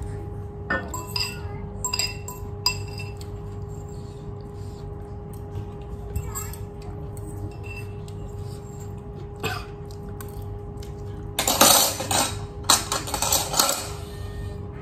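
Metal cutlery clinking against a steel bowl during eating: scattered light clinks with a brief ring. About eleven seconds in comes a louder rough noise lasting a couple of seconds, over a steady hum.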